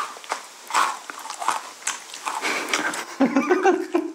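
Close-up crunching of Maltesers as they are bitten and chewed, a run of sharp crackles as the crisp malted-milk centres break. A brief low hum near the end.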